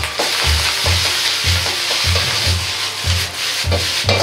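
Rice and egg frying in an iron wok over a gas burner: a steady sizzle, with the metal ladle scraping and knocking against the wok as the rice is stirred and tossed. A rhythmic bass line of background music runs underneath.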